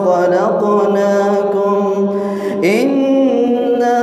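A man's voice reciting the Quran in a melodic chant, holding long drawn-out, ornamented notes, then sliding up into a new phrase about two and a half seconds in.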